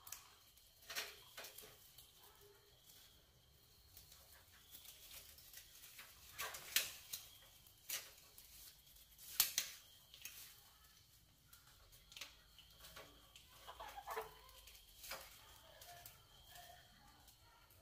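Rats scrabbling over a wire-mesh cage trap and a tin can: scattered sharp clicks and scratchy taps of claws on metal, with a few short squeaks near the end.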